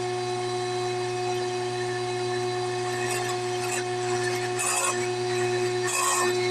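A woodworking power tool running with a steady hum, its cutter biting into wood in short bursts of higher noise four times in the second half.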